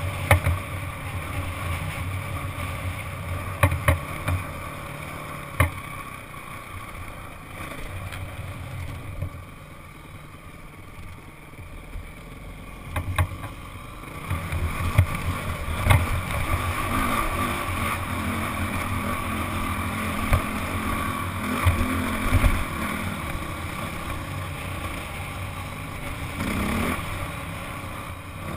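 Honda CRF four-stroke single-cylinder dirt bike engine running at part throttle, with wind noise, heard from the rider's helmet. It eases off about ten seconds in and pulls harder again from about fourteen seconds. Short sharp knocks come every few seconds as the bike jolts over the rock.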